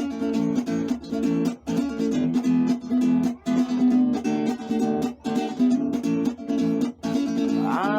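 Acoustic guitar strummed in a steady rhythm, an instrumental passage of a song. A singing voice comes in just before the end.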